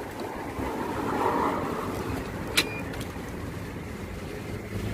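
Street traffic noise, swelling as a vehicle passes about a second in, with a sharp click and a short high beep about two and a half seconds in.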